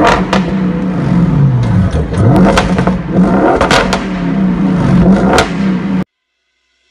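Audi RS6's twin-turbo V8 exhaust being revved repeatedly from a standstill, the pitch climbing and falling several times with a few sharp cracks. The sound cuts off suddenly about six seconds in.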